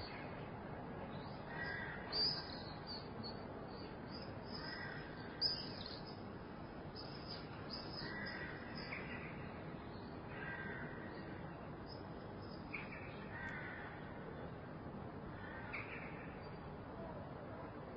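Quiet city ambience heard through an open balcony door: a steady low background hum with birds calling outside, short calls repeating every few seconds and higher chirps in between.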